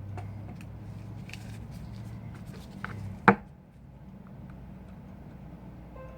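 Small taps and clicks of tools and parts on a work surface during an iPhone 5 teardown, with one sharp click about three seconds in, over a steady low hum.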